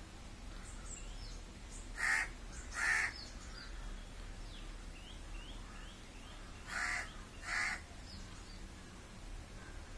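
A crow cawing: two pairs of loud harsh caws, one pair about two to three seconds in and another about seven seconds in. Faint, quick, high chirps of small birds sound in between.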